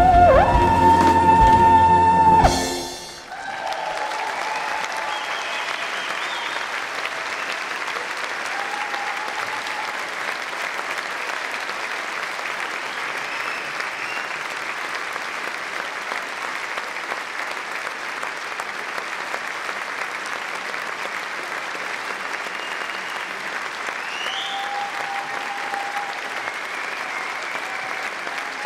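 A wind band's final held chord, with a tenor horn solo on a high sustained note, cuts off about two and a half seconds in. Audience applause follows, steady, with a few cheers.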